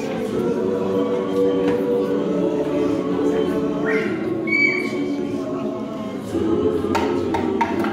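Mixed choir of men's and women's voices singing a gospel song a cappella in close harmony, holding long sustained chords; a brief high note slides up about four seconds in.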